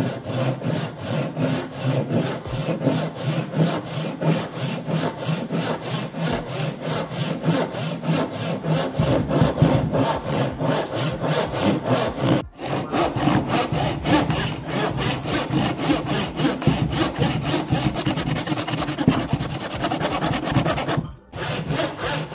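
Tenon saw cutting a small piece of wood held in a bench hook, in steady, even back-and-forth strokes. The sound breaks off briefly twice, about twelve seconds in and near the end.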